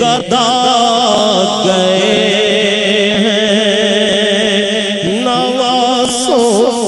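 Male voice singing an Urdu naat in long, wavering held notes, with no break between phrases.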